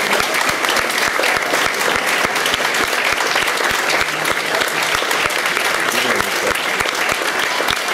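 A crowd applauding: many hands clapping steadily and densely.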